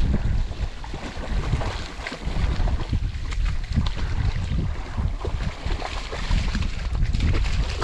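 Strong wind buffeting the microphone in uneven gusts, a loud low rumble, with scattered short rustles and crackles over it.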